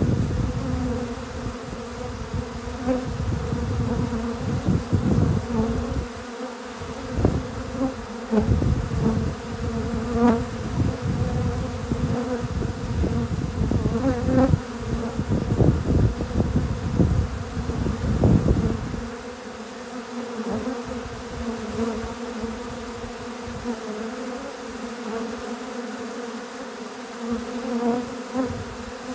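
A dense crowd of honeybees buzzing at a feeder: a steady, low-pitched hum of many wings. A low rumble on the microphone runs underneath and stops about two-thirds of the way through.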